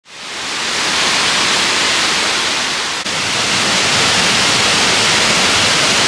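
Boonton Falls waterfall rushing: a steady, loud rush of falling water that fades in over the first second, with a brief dip about halfway through.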